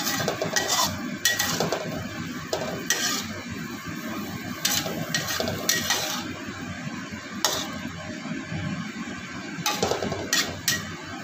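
Spatula scraping and clinking against a wok in irregular strokes as water spinach is stir-fried, over a steady sizzle from the pan.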